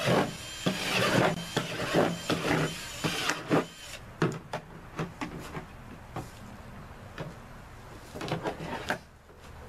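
Power drill boring holes through the wall of a plastic sump basin to perforate it: a long run of the drill for the first three seconds, then scattered short bursts and knocks, busier again near the end.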